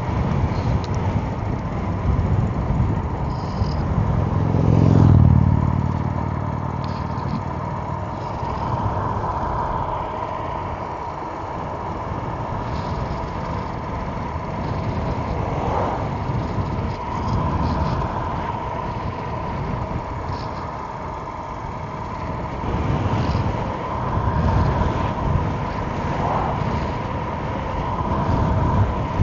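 Ride noise from an Emove Roadster electric scooter at speed on a windy day: gusty wind buffeting the microphone over road rumble, with a steady high whine running through it. A louder low rumble swells about five seconds in.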